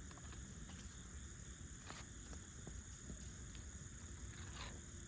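A roof snake clicking and scraping against an asphalt shingle as it works loose a high-set nail, a few sharp clicks, the clearest about two seconds in and again near the end, over a low steady rumble.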